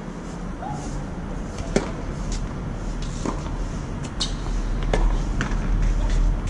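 Tennis ball struck by racket strings and bouncing on a hard court during a rally: about half a dozen sharp pops over a few seconds, the loudest a little under two seconds in. A steady low rumble runs underneath.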